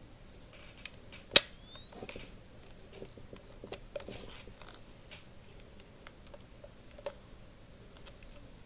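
Built-in electronic flash of a National C-R1 110 film camera: a thin steady high whine, then a sharp shutter click as it fires about a second and a half in, then the flash recharging with a rising whine for about two seconds that cuts off. Scattered small clicks of the camera being handled follow.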